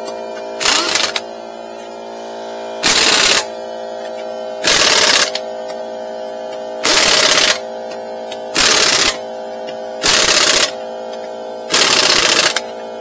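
Air impact wrench hammering lug nuts onto a wheel in seven short bursts, each about half a second long, over a steady motor hum from the DeWalt FLEXVOLT 60V cordless air compressor running to keep up the pressure.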